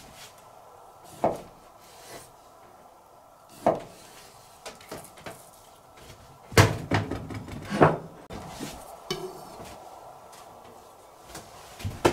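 Kitchen knife slicing raw yellowtail into sashimi on a plastic cutting board, the blade knocking on the board: scattered short knocks and clatters, the two loudest a little past the middle.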